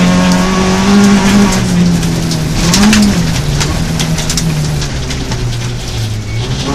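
Rally car engine heard from inside the cabin, pulling hard at high revs, then dropping in pitch and level in the second half as the driver lifts off. Water and stones from the muddy gravel road spray against the car, with a burst of sharp rattling clicks about three seconds in.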